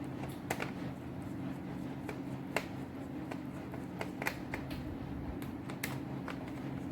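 Irregular light clicks and taps from a screwdriver and the laptop's plastic bottom panel as the panel is fitted and screwed back down, over a steady low hum.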